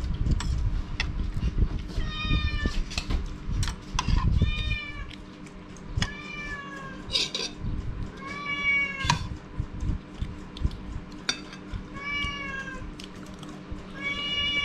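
Domestic cat meowing over and over, a drawn-out meow every second or two, while a metal spoon clinks against a plate.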